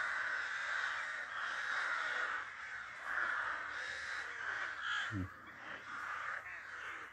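A flock of crows cawing all at once: a cacophony of many overlapping calls with no break.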